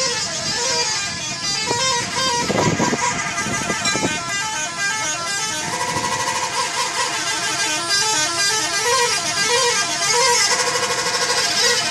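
Indonesian bus 'telolet' horns playing quick multi-note tunes, the tones stepping up and down and repeating, with a short burst of noise a few seconds in.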